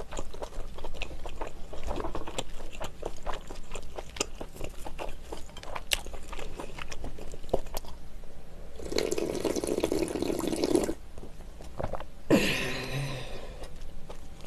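Close-miked mouth sounds: wet chewing with small smacks and clicks on a bite of scallop, then slurping spicy noodle-soup broth straight from the bowl for about two seconds, followed by a short voiced breath.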